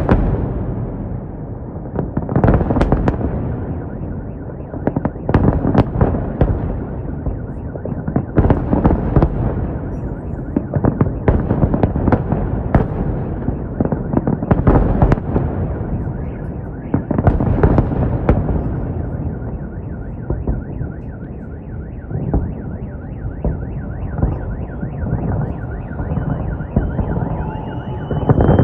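Fireworks salute: clusters of shell bursts, bang after bang with crackle between them, coming every couple of seconds. In the last third a high, rapidly repeating tone sounds over the bangs and warbles up and down near the end.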